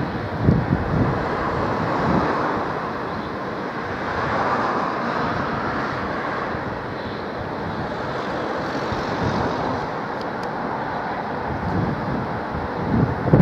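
Southern Class 313 electric multiple unit pulling away along the track, a steady running roar with gentle swells. Wind buffets the microphone with low thumps about half a second in and again near the end.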